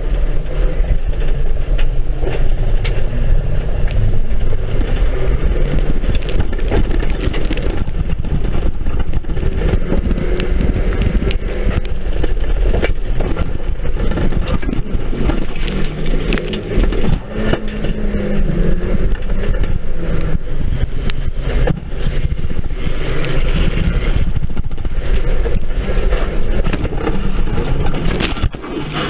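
Banger race car's engine running hard, heard from inside its stripped-out shell, with frequent rattles and knocks from the bodywork over the rough dirt track.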